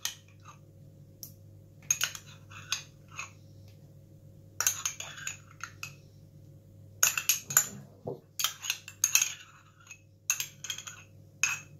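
Metal teaspoon scraping and clinking inside a yoghurt jar as yoghurt is scooped out and tipped into a bowl, in irregular clusters of short scrapes and taps.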